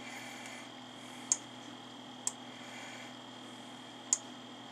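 Three single sharp computer mouse clicks, spaced about a second or two apart, over a steady electrical hum.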